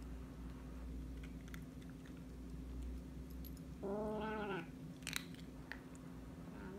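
A kitten chewing food, with scattered small clicks and crunches, and one short cat cry lasting under a second about four seconds in.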